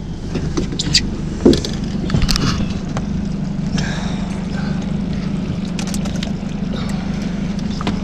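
An engine running steadily with a low, even hum, with a few sharp clicks and knocks in the first couple of seconds.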